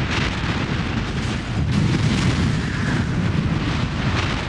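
Steady rumbling noise from the sound effect of an animated title sequence. It is heaviest in the low end, with a hiss above it, and has no clear tone or beat.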